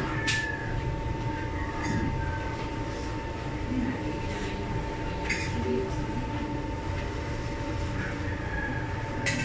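Steady low rumble with a constant high whine from running room machinery, with a few faint clicks scattered through it.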